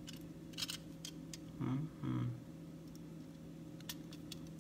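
Light scattered clicks and ticks of a small screwdriver turning a tiny metal screw out of a diecast toy car's plastic base, over a steady low hum. About two seconds in come two short hums from a voice.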